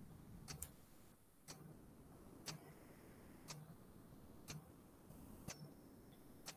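Near silence with a clock ticking faintly and evenly, about once a second.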